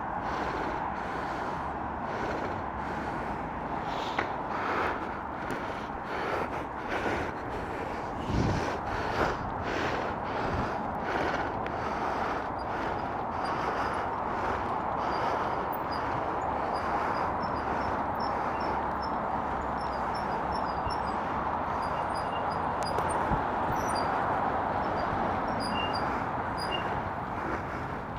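Footsteps at about two a second for the first twelve seconds or so, over a steady hiss; the footsteps then fade and the hiss carries on with a few faint high ticks.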